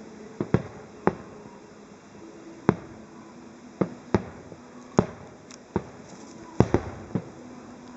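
Aerial firework shells bursting: about a dozen sharp bangs at uneven intervals, some coming in quick pairs.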